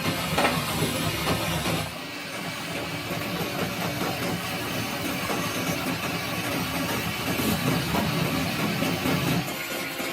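Machinery running with a steady low rumble and dense noise, changing abruptly about two seconds in.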